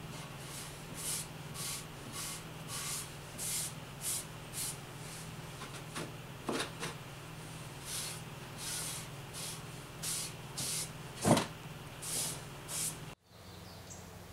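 Sandpaper rubbed by hand along a wooden axe handle: a short hiss with each stroke, roughly every half second, pausing briefly near the middle. A few sharp knocks come in, the loudest about eleven seconds in, over a low steady hum. Near the end the sound cuts off abruptly.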